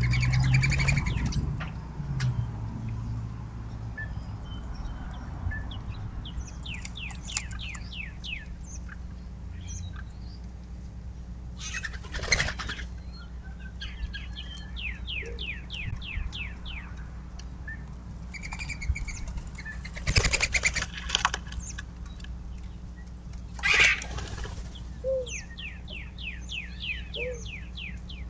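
Mourning doves' wings fluttering at a bird feeder: a loud flurry of wingbeats at the start, then short, sharp flaps around the middle and near the end. A songbird's fast, even trill repeats three times in the background.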